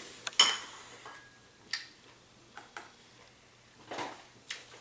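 A few scattered light clicks and taps of ceramic bowls and spoons being handled at a dinner table while someone eats. The loudest click comes just after the start, with quieter ones spread through the rest.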